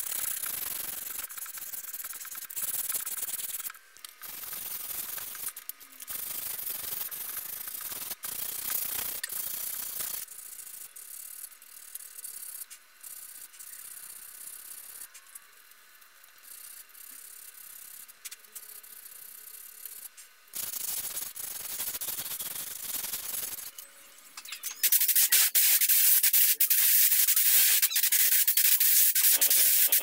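Sandpaper rubbed by hand over teak wood strips in repeated scratchy strokes that stop and start. About 25 s in, a paint spray gun starts hissing loudly and steadily.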